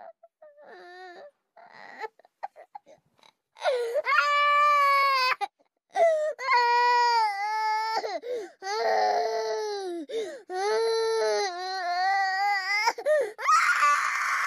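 A baby crying: soft, broken whimpers at first, then loud, long wailing cries with short catches of breath between them, turning harsher near the end.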